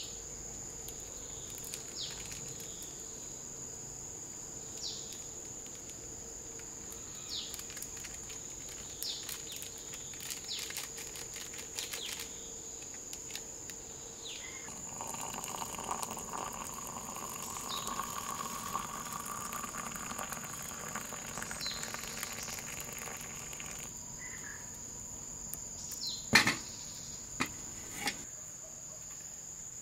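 Insects shrilling with one steady high-pitched drone, with short falling bird calls every few seconds. Near the end come three sharp knocks, the loudest sounds.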